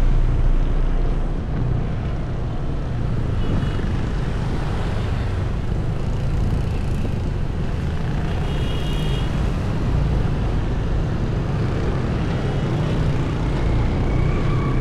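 Steady low rumble of a running vehicle engine and street traffic, with wind on the microphone. A few short, faint high-pitched tones sound over it.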